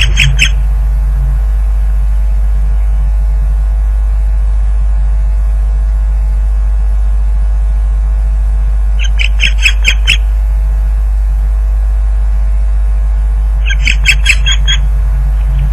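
Osprey giving quick bursts of sharp, repeated alarm calls: three bouts, at the start, about nine seconds in, and near the end. They are the calls of a nesting osprey seeing off an intruder. A steady electrical hum runs underneath.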